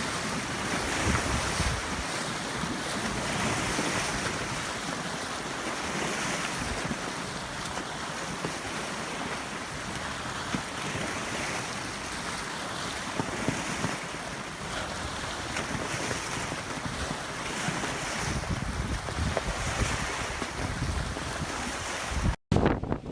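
Strong storm wind with waves breaking on a lakeshore, rising and falling every few seconds, and wind buffeting the microphone. It cuts out abruptly near the end.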